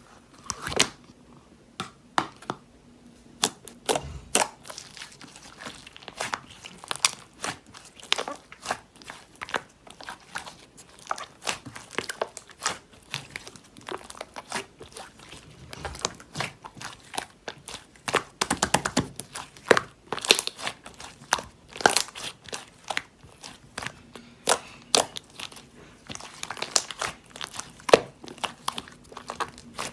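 Sheets of paper being handled close up: irregular rustling and crinkling, with many sharp crisp clicks and snaps.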